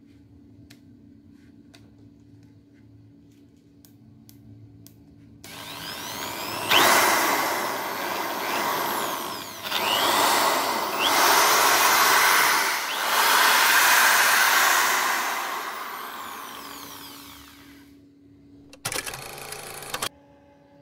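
J.LD Tool J13-2 580 W corded impact drill running free: a few faint clicks, then the motor spins up about five seconds in, its speed rising and falling on the variable trigger before winding down. A short burst of just over a second follows near the end.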